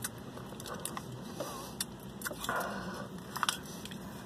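Mouth sounds of tasting hot sauce from a plastic packet: lip smacks and sucking, with scattered small clicks and a short breathy rush about two and a half seconds in.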